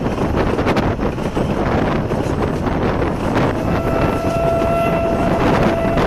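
Narrow-gauge steam train carriage rumbling along the track. About three and a half seconds in, the steam locomotive's whistle sounds one long, steady note.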